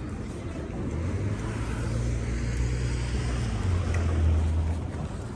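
A motor vehicle's engine running close by on a city street: a low hum that swells about a second in, is loudest around four seconds and drops away near the end, over steady traffic noise.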